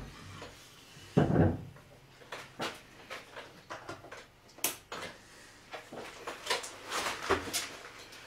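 Handling noises on a wooden workbench. A dull thump comes about a second in, then a run of light, irregular knocks, taps and scrapes as a carved wooden bird and hand tools are set down and moved about.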